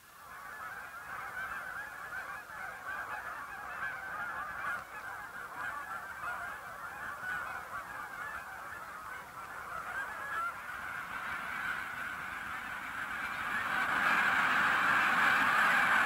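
A large flock of geese honking, many calls overlapping in a continuous chorus that grows louder near the end.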